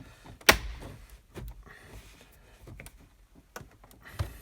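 Plastic trim clips being pried loose from a dashboard: one sharp snap about half a second in, then a few smaller clicks and scrapes of plastic on plastic.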